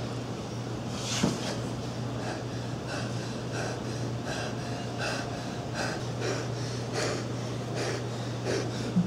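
A young man breathing in quick, uneven, panicky gasps, acting terrified of the height, over a steady low hum.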